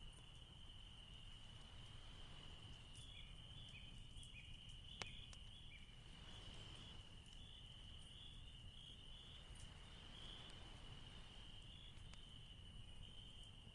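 Near silence, with a faint steady high-pitched tone and one faint click about five seconds in.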